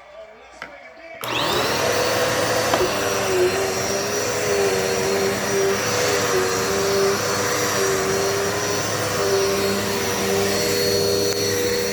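Dirt Devil Multi-Surface vacuum cleaner switched on about a second in: the motor spins up with a quickly rising whine, then runs steadily with a high whine over its rushing air noise.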